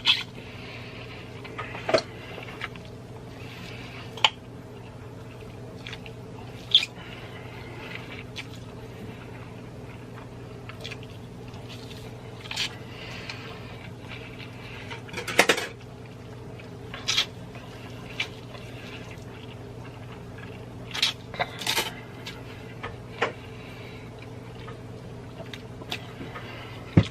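Close-miked eating sounds: irregular mouth and chewing noises with occasional sharp clicks of cutlery against a dish, over a steady low hum.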